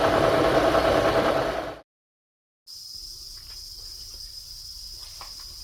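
Milling machine running as a quarter-inch high-speed steel end mill plunges through the part, a steady loud machining noise with a held tone, which cuts off abruptly a little under two seconds in. After a brief gap, quiet room tone with a steady high whine and a few faint clicks.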